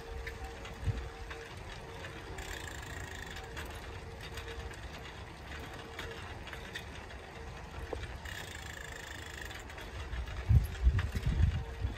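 Bicycle being ridden along a paved street, with rolling and light mechanical clicking from the bike. Wind rumbles on the microphone in gusts near the end.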